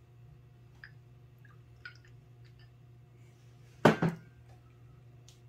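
Rice wine poured from a glass bottle into a small glass, with a few faint clinks and drips, then the bottle set down on the table with a sharp double knock about four seconds in.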